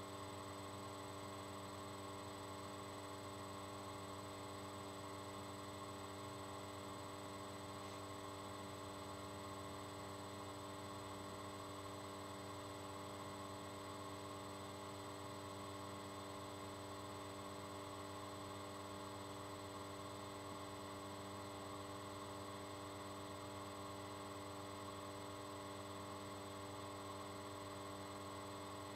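Steady electrical hum made of several low tones, with a thin high whine above it, unchanging throughout: the recording's own background noise, with no speech.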